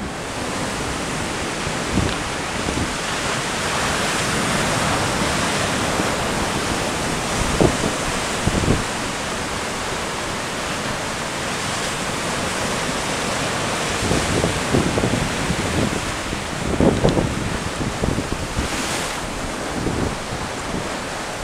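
Sea surf breaking and washing over coastal rocks in a steady rush, with gusts of wind buffeting the microphone now and then.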